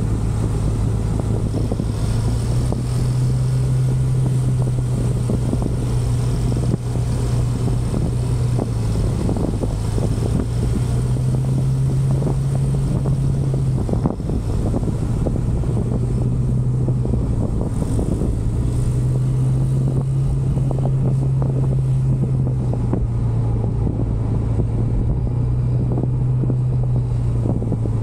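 Motorcycle engine running while riding, its note shifting up and down a few times with the throttle, with wind rushing over the microphone.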